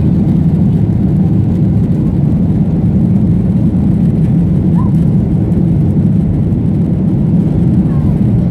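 Steady, loud cabin noise of a Boeing 737 jet airliner climbing after takeoff: engines at climb power and rushing airflow heard from a window seat over the wing, a dense low sound that does not change.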